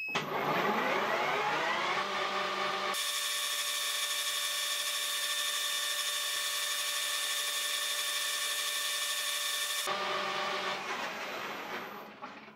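Metal-working lathe with a gear-driven rotating fly-cutter attachment spinning up with a rising whine of gears. It runs steadily while the three-tooth cutter machines a star into an aluminium disc, with a harsher, hissier cutting sound through the middle stretch. It then winds down with a falling whine near the end.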